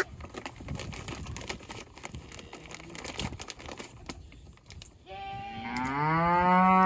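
A goat bleating: one long call of about two seconds near the end, rising a little in pitch, after a few seconds of faint rustling and clicks.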